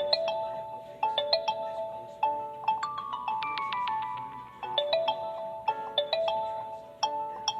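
Phone ringtone: a looping melody of short plucked, bell-like notes in a mid-to-high register. It starts suddenly and begins its phrase again about four and a half seconds in.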